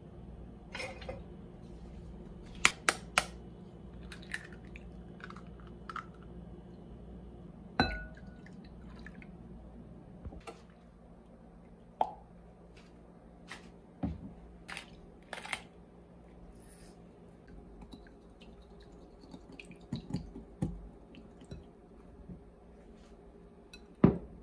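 Scattered clinks and knocks against a glass mixing bowl while French toast egg mixture is put together and bread is dipped in it: ingredients poured in, utensils and fingers tapping the glass. The sharpest knock comes near the end. A low steady hum runs underneath.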